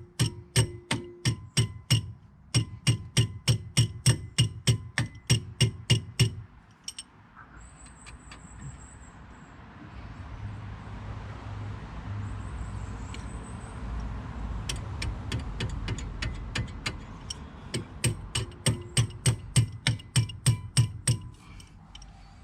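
Ratchet wrench clicking in quick, even strokes while a brake bolt is tightened, in two spells, with a steady low rumble in the pause between them.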